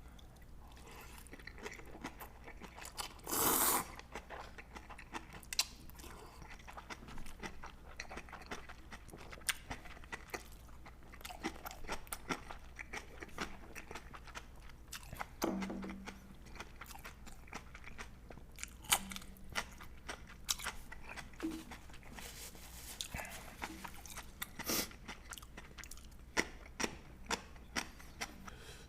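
A person eating ramen and crunchy side dishes close to the microphone: steady chewing with many short crunching bites, and one louder noisy burst about three seconds in.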